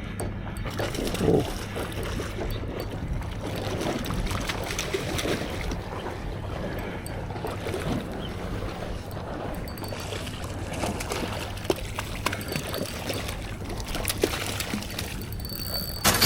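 Water splashing and trickling, with scattered small ticks. A low steady hum runs under it for about the first nine seconds, then fades.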